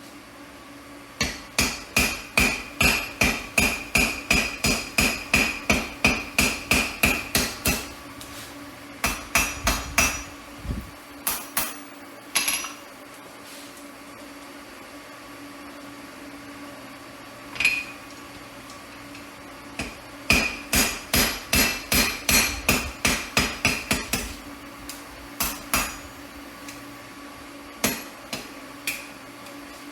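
Hammer blows on steel at the anvil, each with a ringing note, in quick runs of about three strikes a second broken by pauses and a few single blows.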